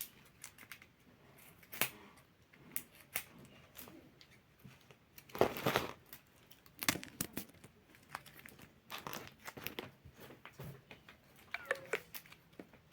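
Thin plastic wrapping being crinkled and torn off a squishy toy: a string of short crackles, with a longer, louder rustle about six seconds in.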